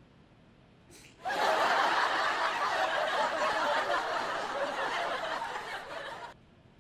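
Canned audience laughter, a sitcom laugh track, starting about a second in and cutting off abruptly a little before the end.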